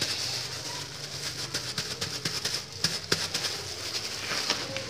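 Disposable plastic gloves and a plastic sheet crinkling and rustling as hands press and flatten a lump of sticky rice, with scattered small irregular crackles.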